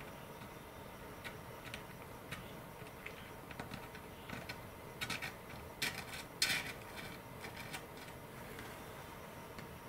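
Quiet, scattered clicks and light scrapes of a thin applicator tool working epoxy into a glider fuselage's servo tray. The clicks bunch up and grow louder about five to seven seconds in.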